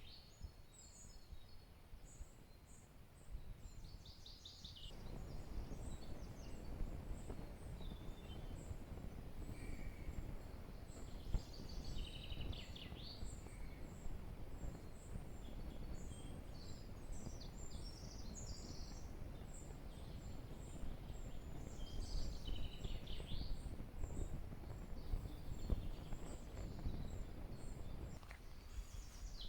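Small birds chirping and twittering on and off. From about five seconds in, a rough, steady rustling noise rises beneath them and drops away shortly before the end.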